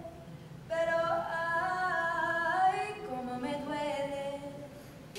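A woman singing unaccompanied, holding long notes that glide between pitches, after a short pause at the start; the notes drop lower and fade near the end.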